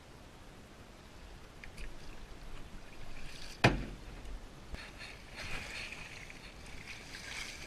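Water splashing and sloshing around floating wreckage, with one sharp knock about halfway through.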